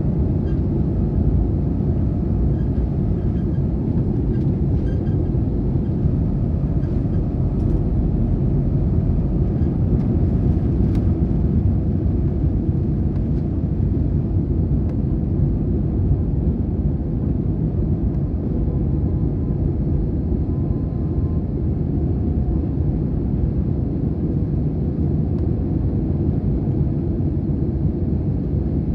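Jet airliner at takeoff power heard from inside the passenger cabin, through the takeoff roll and climb-out: a loud, steady, deep rumble of engines and airflow.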